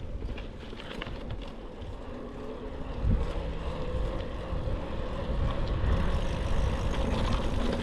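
Wind buffeting the built-in microphones of a GoPro Hero 12 Black with wind reduction switched off while riding a bicycle, a heavy low rumble under a faint steady hum. A strong gust hits about three seconds in, and the noise stays louder after it.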